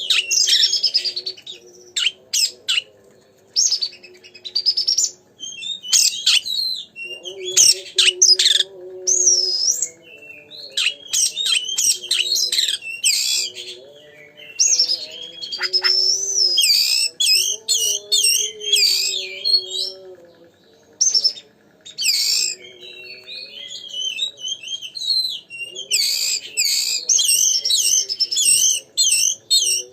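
Oriental magpie-robin (kacer) in full song: loud, varied phrases of rapid whistles, trills and chattering notes in bursts with short pauses, the energetic 'gacor' song used as a lure to provoke other kacer. A faint low wavering hum lies underneath.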